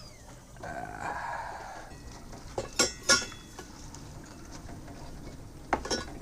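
Hot water poured from a kettle for coffee, a soft hiss of about a second and a half, followed by a few sharp clinks of dishes or utensils, a pair near the middle and another near the end.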